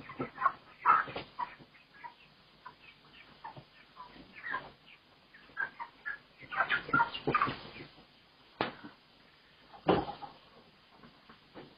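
Live chickens clucking in short, irregular calls, busiest about six to seven seconds in. Two sharp knocks come later, the second about ten seconds in.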